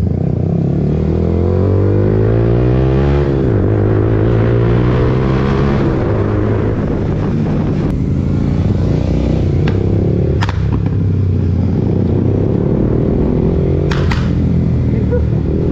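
Royal Enfield GT 650's parallel-twin engine with a Code 6 tune, pulling hard with its pitch rising for about three seconds, dropping at a gear change, then running on. Several sharp exhaust pops and crackles come in the second half, the sound of the tune's crackle map.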